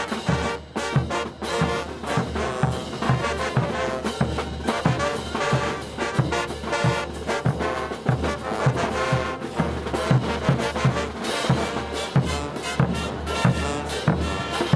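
Brass band playing morenada dance music, brass over a steady, regular bass-drum beat.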